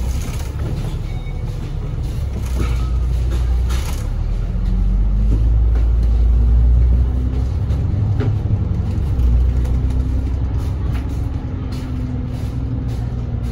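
Inside a KMB Alexander Dennis Enviro500 double-decker bus under way: a steady low engine drone with small cabin rattles. Its note rises and grows louder from about four seconds in as the bus accelerates, then falls back a little after seven seconds.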